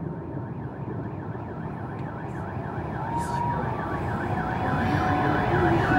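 A fast, regularly repeating electronic siren warble over a steady low hum from the city. Long steady horn tones join about halfway through, and the sound grows louder toward the end.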